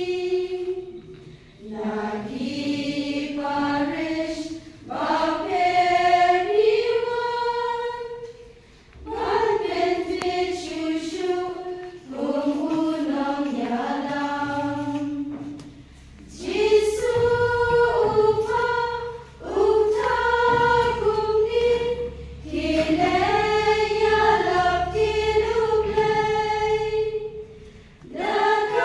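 A choir singing in phrases a few seconds long, with short breaks between them.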